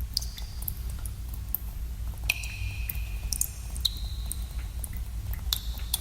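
Water dripping in a cave: several drops at irregular intervals, each a sharp plink, some with a brief ringing tone, over a steady low rumble.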